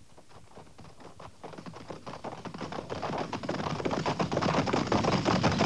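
A dense, rapid clatter of many small knocks, growing steadily louder throughout: an opening sound effect of a 1950s radio drama.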